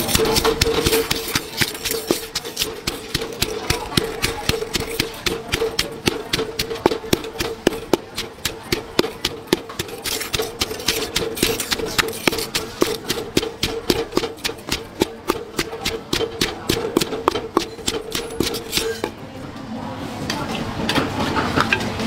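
Wooden pestle pounding fresh red chillies in a mortar, a fast run of sharp knocks several a second that stops about three seconds before the end. A steady hum runs underneath until the pounding stops.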